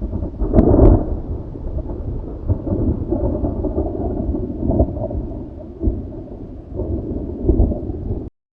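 Thunder: a sharp crack about a second in, then a deep rolling rumble that swells several times and cuts off suddenly near the end.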